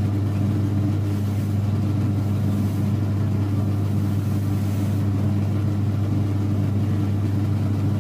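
Cobbler's shoe finishing machine running with a steady, loud motor hum while a shoe is buffed against its spinning polishing wheels.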